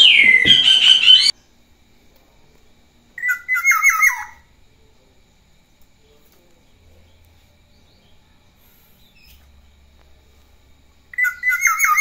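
Black-naped oriole singing. A burst of calls cuts off abruptly about a second in, then two short whistled phrases that fall in pitch come about eight seconds apart, with near silence between.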